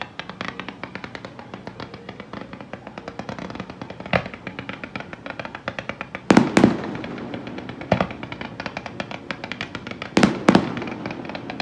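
Aerial fireworks display: a continuous rapid crackling, with heavy bangs breaking through every few seconds. The loudest are two close pairs, about six and ten seconds in.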